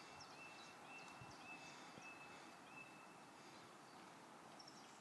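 Faint outdoor quiet with a bird calling: a short, even, high note repeated about twice a second, six times, fading out about three seconds in, with faint higher chirps.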